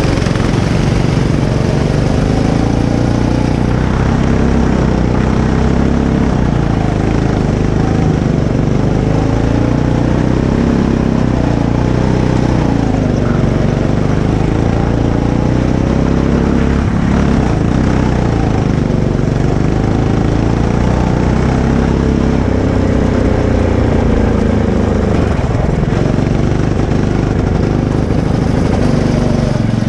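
Go-kart engine running hard, its pitch rising and falling over and over as the kart accelerates and eases off through the turns of the track.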